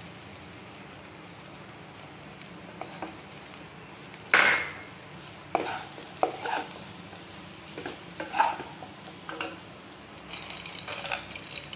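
Wooden spatula stirring and scraping a potato and spice-masala mixture around a nonstick pan while it fries, over a low steady sizzle. The strokes come irregularly, the loudest about four seconds in, and near the end peanuts are tipped into the pan.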